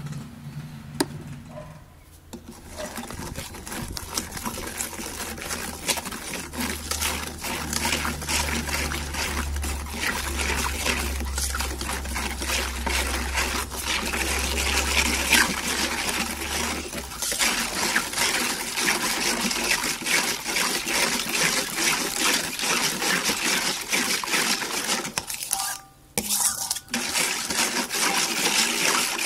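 Metal spoon stirring a watery red seasoning marinade in a stainless steel bowl: rapid clinking and scraping against the metal with liquid sloshing, starting about two seconds in and pausing briefly near the end. A low rumble sits underneath for about ten seconds in the middle.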